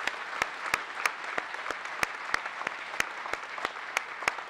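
An auditorium audience applauding. One person's sharp claps sit close to the microphone and stand out above the crowd at about three a second.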